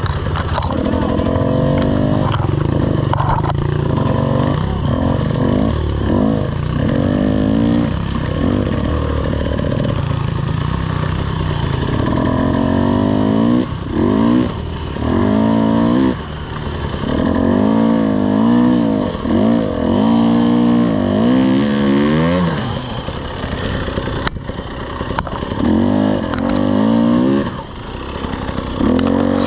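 Off-road racing engine revving up and down over and over as it is ridden hard along a trail, its pitch climbing and dropping every second or two.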